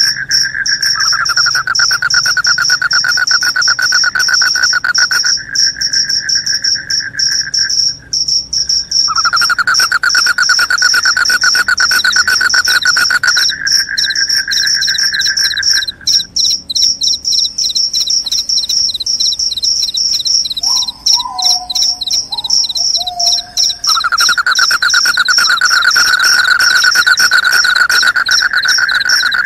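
Crickets chirping loudly in fast, rapidly pulsed trills: a high trill that runs without a break, and a lower trill that stops and starts again in long stretches.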